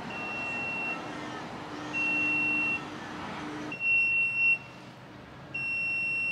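Alarm on a building's booster pump cabinet beeping: a single high steady tone, just under a second long, repeating about every two seconds, four times.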